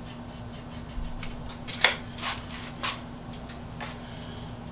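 A handful of light clicks and taps from small tools being handled at the workbench, the sharpest nearly two seconds in, over a steady low hum.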